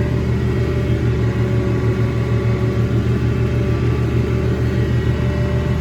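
Massey Ferguson 1105 tractor's six-cylinder diesel engine running steadily under throttle with a low, even rumble.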